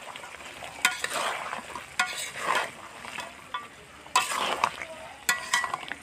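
Steel spatula stirring chicken and potato curry in a large metal karahi: scraping strokes over a steady sizzle, with about five sharp metal clanks against the pan.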